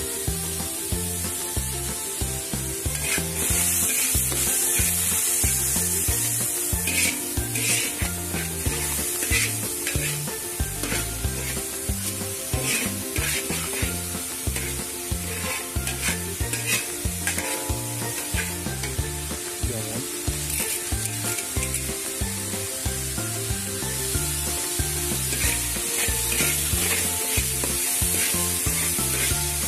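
Ground spice paste of shallots, garlic and candlenuts sizzling in hot oil in a wok, with a spatula scraping and stirring it in many short strokes. Background music with a steady beat plays underneath.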